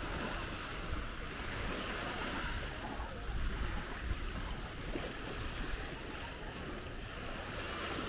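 Small waves lapping and breaking on a sandy beach, with wind rumbling on the microphone.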